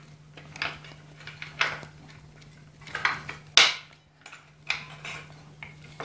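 Metal clinks and scrapes as steel brake shoes with their return springs are pressed and levered by hand onto a motorcycle drum brake's backing plate. Scattered clicks come about once a second, the sharpest about three and a half seconds in.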